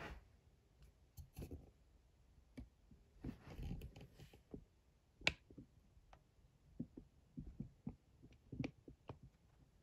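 Faint, scattered clicks and taps in a quiet room, with one sharper click about five seconds in.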